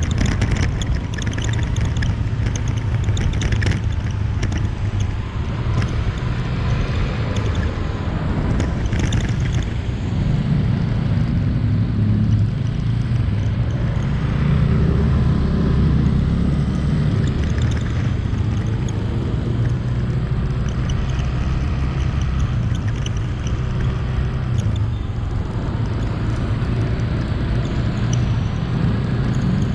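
Motorbike engine running and road noise during a ride in city traffic, a steady low rumble that grows louder for a few seconds around the middle.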